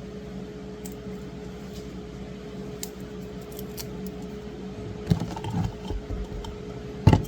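Steady electric fan hum, with a few light knocks about five seconds in and a louder knock near the end as kitchen items are handled on the counter.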